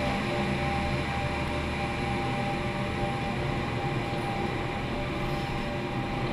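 Chairlift station machinery running: a steady mechanical hum and whine from the bullwheel, rollers and rails, holding a few constant tones.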